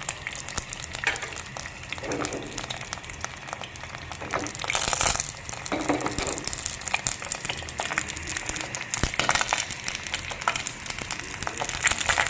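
Egg frying in hot oil in a pan, sizzling and crackling steadily, louder for a moment about five seconds in.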